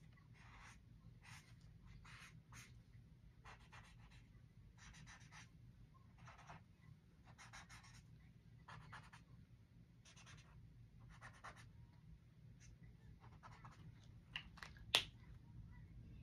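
Marker tip stroking across sketchbook paper: a faint series of short scratchy strokes, about a dozen, each under a second long. A single sharp click near the end.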